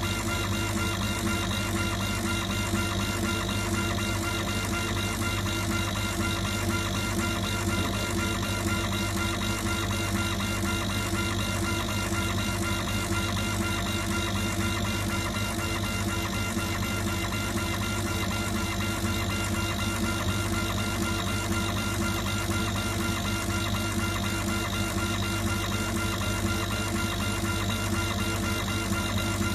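Stone laser engraving machine running steadily while it engraves an image into a stone tile: a constant mechanical hum and buzz.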